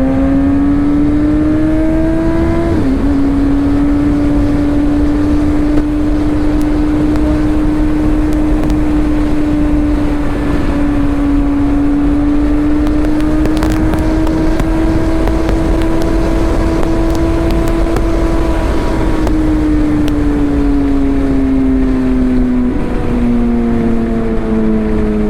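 Suzuki GSX-R1000's inline-four engine holding a steady high note at speed, easing down in pitch near the end, heard under heavy wind rumble on a GoPro's built-in mic in its case with no external mic attached.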